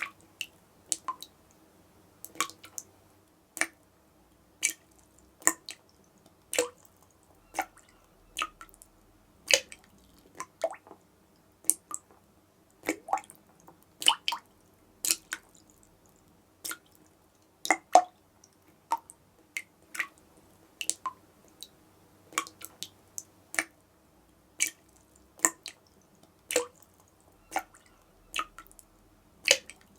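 A dripping tap: single drops of water plinking one after another, about one to two a second at uneven intervals.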